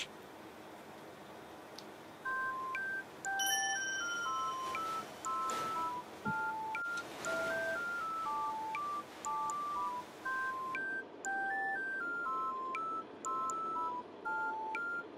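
Background music: a simple melody of plain, beep-like electronic tones, one note at a time stepping up and down, starting about two seconds in over faint room tone.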